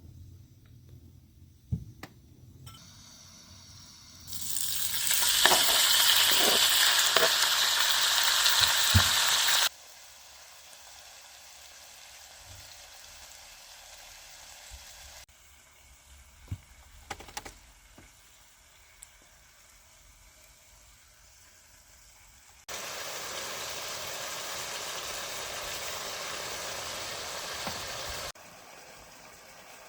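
Food sizzling as it fries in a pan, with a few knocks and clicks from utensils. Two loud stretches of sizzling, the first about four seconds in and the second near the end, start and stop abruptly, with a fainter sizzle between them.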